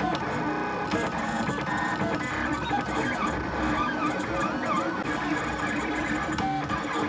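Lulzbot AO-101 3D printer running a print: its stepper motors whir steadily under short whines that rise and fall in pitch as the print head and bed change speed and direction.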